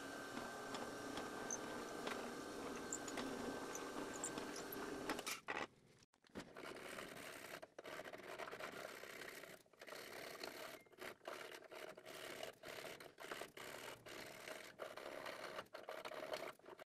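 A drill press running, its twist bit boring into a handle block of paper towels cast in resin. It cuts off about five seconds in. Then a drill bit is twisted by hand in the hole, scraping out the tang slot in short, irregular strokes.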